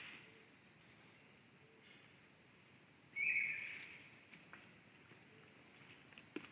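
Forest ambience: a steady high insect drone throughout, with a short, louder hissy call or rustle about three seconds in and a few faint ticks.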